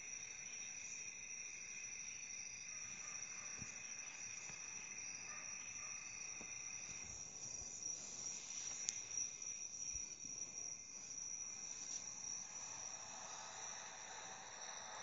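Faint, steady high-pitched ringing of several held tones, like insects, with a single short click about nine seconds in.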